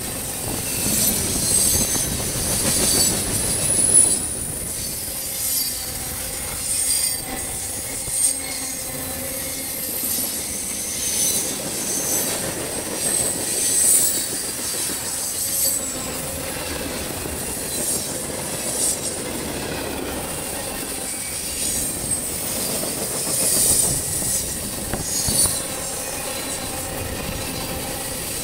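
Freight cars rolling past at close range: a continuous rumble of steel wheels on rail, with short clacks and repeated high-pitched wheel squeals coming and going throughout. The squeal is typical of wheel flanges grinding against the rail on a curve.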